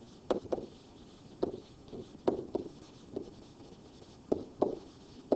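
Stylus tapping and scratching on a pen-input screen while words are handwritten: a string of about ten short, irregular ticks.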